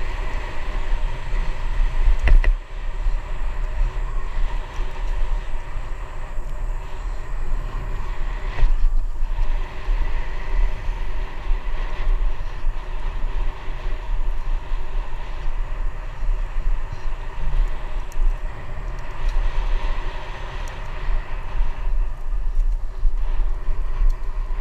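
Bicycle riding along a paved trail: a steady rumble of wind and tyre noise on a GoPro's microphone, with one sharp knock about two and a half seconds in.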